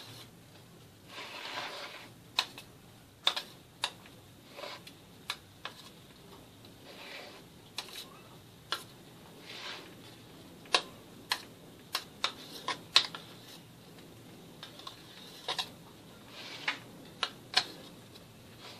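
Irregular light clicks and taps against a stainless steel cake ring, with short spells of soft rustling, as hands press a chocolate sponge layer down inside it.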